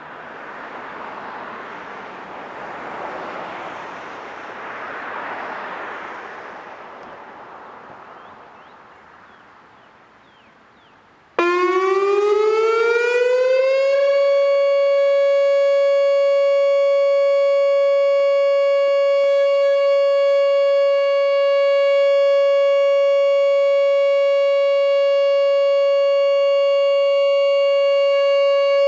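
A rushing noise swells and fades away. About 11 seconds in, a Whelen WPS 2910 electronic outdoor warning siren starts abruptly, winds up in pitch for a couple of seconds and then holds one loud steady tone: the steady alert signal sounded during a siren test.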